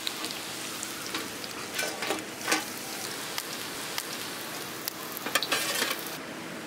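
Masala-coated raw banana slices sizzling steadily in hot oil on a flat iron griddle, nearly done. A steel spatula scrapes and clinks against the pan a few times as pieces are lifted out.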